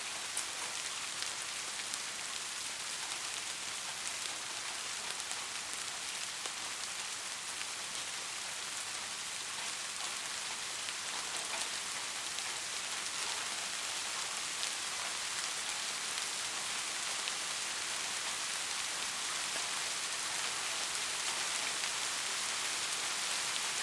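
Steady rain falling on a surface, an even hiss with scattered drop ticks, growing slightly louder toward the end.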